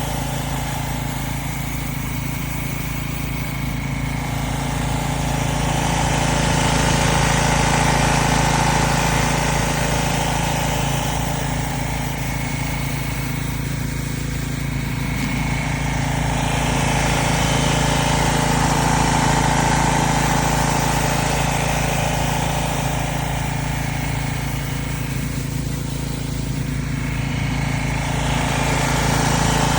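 Pressure washer engine running steadily with the hiss of water spraying through a rotary surface cleaner. The hiss swells and fades slowly, about every ten seconds.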